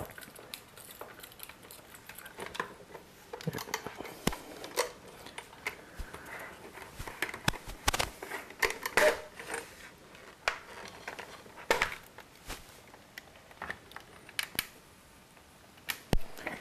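Irregular clicks, taps and knocks as a small screwdriver works the last Torx screws out of an iMac G4's base and the white plastic dome housing is gripped and pulled apart, with a few louder knocks about halfway through.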